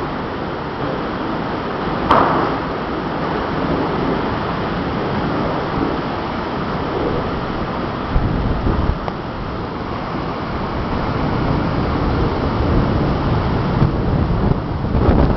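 Storm wind gusting hard across the microphone in a continuous rumbling rush, with a single sharp crack about two seconds in.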